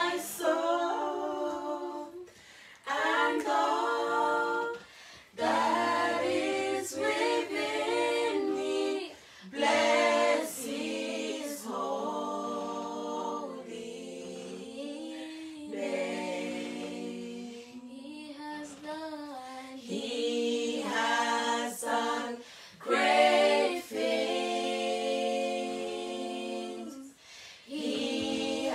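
A small group of voices singing a praise song a cappella, with no instruments, in long held phrases broken by short pauses for breath.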